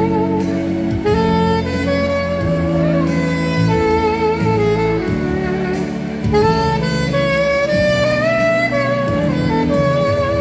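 Saxophone playing a slow melody with vibrato over an accompaniment of sustained chords and bass.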